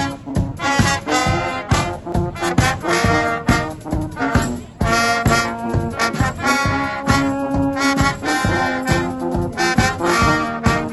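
Guggenmusik band playing live: trombones, trumpets and saxophones blaring a tune together over a steady bass drum and snare beat.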